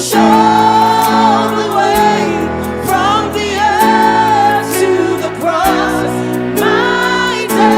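Gospel worship song: a choir or worship team singing over sustained keyboard chords, with chord changes about every two seconds.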